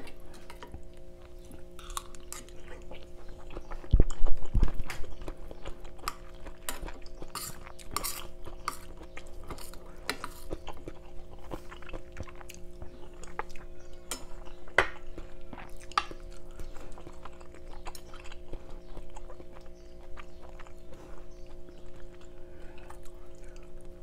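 A person eating: chewing, and a metal spoon clicking and scraping against a wooden bowl in short scattered sounds, over a steady low hum. A heavy thump comes about four seconds in.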